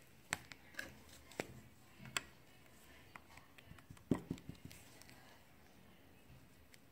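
Handling noises while making slime: a few scattered sharp clicks and taps, with a quick cluster of them about four seconds in.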